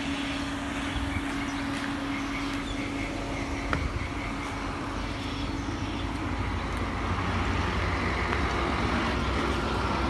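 A vehicle engine idling amid outdoor street noise. A steady hum stops a little before four seconds in, just after a single sharp click, and the noise grows slightly louder in the second half.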